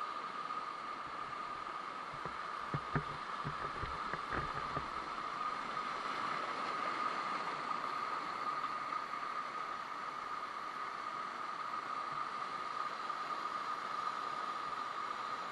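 Steady rushing of a waterfall, with a few brief low knocks about three to five seconds in.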